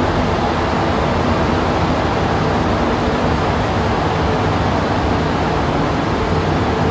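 Rubber-tyred Montreal Metro Azur train running through the tunnel, heard from inside the car: a loud, steady rolling rumble and rush with faint humming tones under it.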